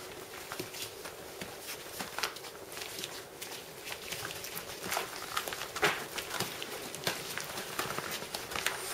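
Five-week-old puppies scuffling and pattering about on blankets: many light, irregular taps and scrapes, with one louder knock about six seconds in.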